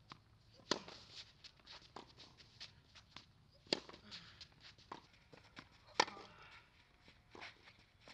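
Tennis racket striking the ball three times, about two and a quarter seconds apart, each hit a sharp, loud pop, the one near the end of the second third the loudest. Between the hits, lighter scuffs and steps of tennis shoes moving on a clay court.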